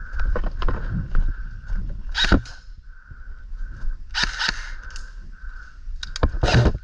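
Rustling and scuffing of someone moving through brush, in a few scraping bursts over a low rumble that buffets the microphone.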